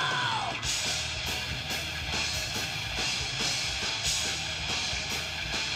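Heavy metal music with distorted electric guitars and a drum kit keeping a steady beat. This is an instrumental passage after a falling note fades in the first half second.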